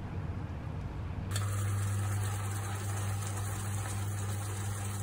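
Slices of luncheon meat sizzling in a pan of sugary marinade, starting suddenly about a second in, over a steady low hum.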